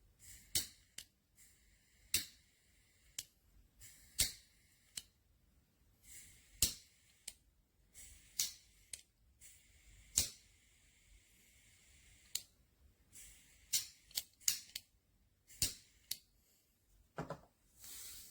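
A series of sharp, irregular clicks and snaps, roughly one every second or so, some followed by a short hiss.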